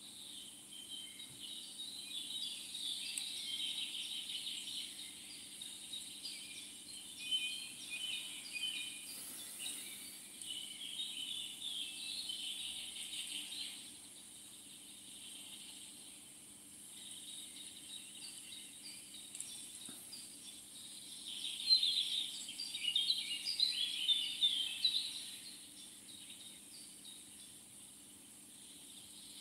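Small songbirds chirping and singing in busy bouts, loudest a little past the middle, over a faint steady background hum.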